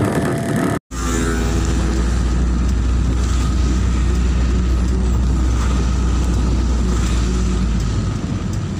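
Road noise inside a car's cabin while driving in heavy rain: a steady low engine and tyre rumble with a hiss of wet road and rain. A brief dropout comes under a second in, and the low rumble eases near the end.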